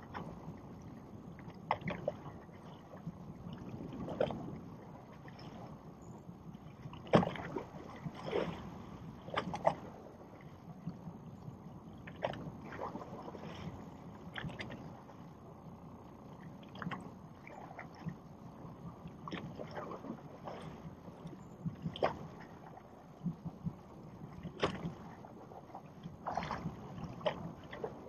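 Water lapping against a small boat's hull over a low steady rumble, broken by irregular sharp knocks and clicks, the loudest about a quarter of the way through.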